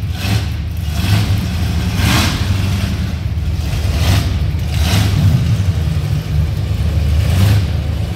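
The engine of a heavily lifted squarebody Chevrolet crew-cab pickup running and revving as the truck moves off, a steady deep rumble with several short hissing bursts over it.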